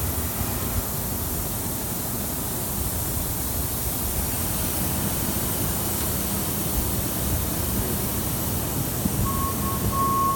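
Steady noise of a machine shop with machinery running. Near the end a steady high-pitched whine sets in as the FlexDrill CNC vertical machining center is started from its control panel.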